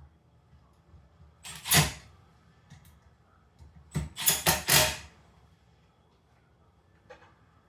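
Sharp knocks and clatters of handling: one about two seconds in, then a quick run of about four between four and five seconds in.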